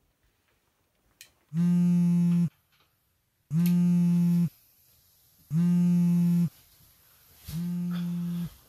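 Mobile phone on vibrate buzzing against a wooden bedside table for an incoming call: four one-second buzzes two seconds apart. The last buzz is softer, with the phone lifted off the table.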